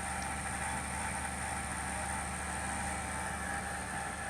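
Desktop PC running with a steady low hum and whir. This is an unusual noise that the owner cannot pin down; he has ruled out the fans and suspects the graphics card.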